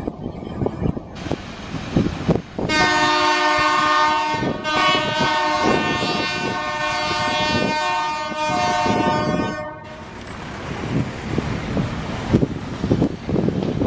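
GE U11B diesel locomotive's air horn sounding one long chord-like blast of about seven seconds, starting near three seconds in, over the low rumble of the passing work train.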